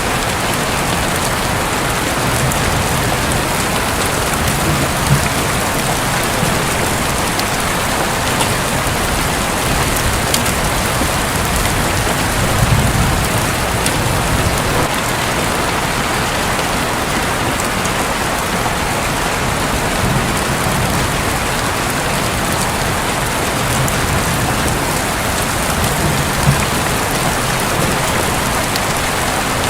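Heavy rain falling steadily on a roof: a loud, dense, even hiss with scattered sharp ticks of individual drops.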